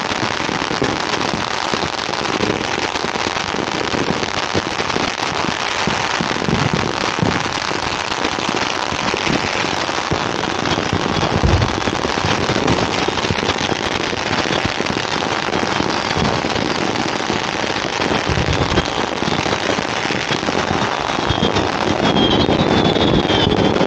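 Dense, unbroken crackle of many firecrackers going off at once, with a couple of heavier booms partway through.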